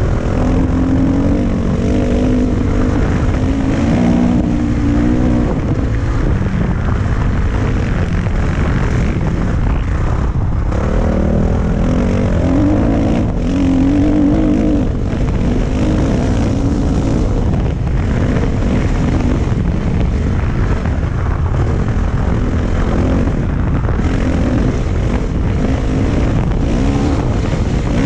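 Dirt bike engine running under way, its revs rising and falling as the rider rides the track, with steady wind rumble on a helmet-mounted camera's microphone.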